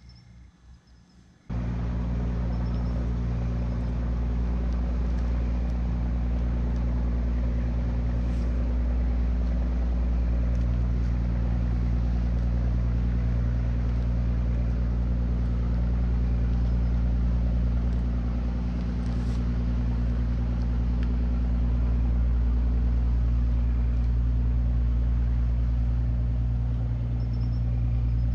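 Steady low drone of an engine running evenly. It cuts in abruptly about a second and a half in and holds unchanged, with a few faint ticks on top.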